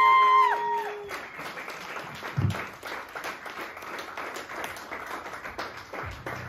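The band's last held chord, amplified electric guitar and bass, ringing out and cutting off within the first second, then the audience applauding, with a single low thump about two and a half seconds in.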